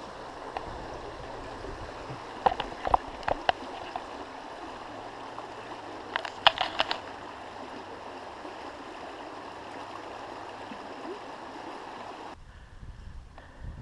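A small woodland stream flowing with a steady rushing sound, broken by a few sharp clicks about two and a half seconds in and again around six and a half seconds. The water sound cuts off abruptly near the end.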